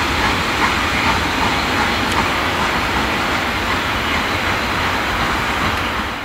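Steam train hauled by a Hunslet 14-inch saddle tank locomotive moving away along the track, a steady rumble and hiss with faint regular knocks, fading out near the end.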